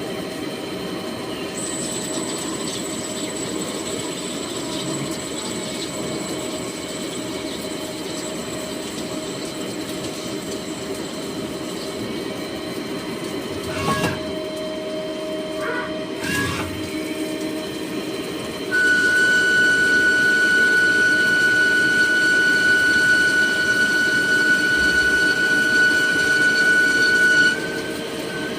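CNC lathe running with a steady machine hum and a few light clicks. In the second half it grows louder for about nine seconds, with a steady high whine, then drops back to the hum.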